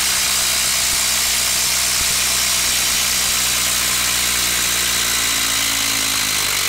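Bosch 18-volt brushless impact driver hammering continuously under load as it drives a long screw down into a wooden log, a loud steady rapid rattle of impacts.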